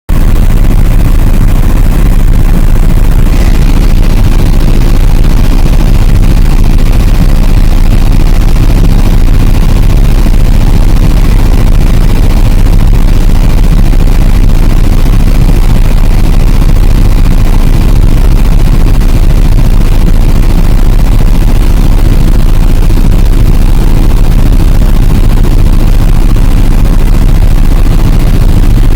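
Helicopter engine and rotor noise heard from inside the cabin: a very loud, steady low drone.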